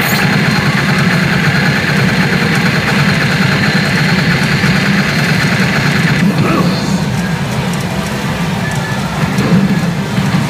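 Pachinko parlour din: a CR Shin Hokuto Musou pachinko machine's effect sounds and music over the steady roar of the hall's machines. A higher layer of the sound drops away about six seconds in.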